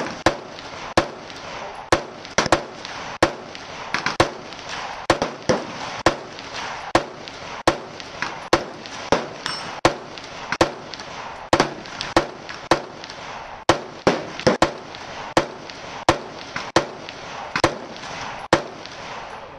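Gunfire: a long string of sharp shots, about one or two a second, some louder and some fainter, each with a short ringing tail.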